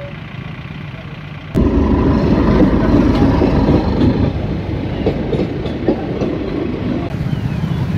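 Passenger train coaches passing close by, a loud rumble of wheels on rails with repeated clickety-clack. It starts abruptly about a second and a half in, after quieter idling traffic noise.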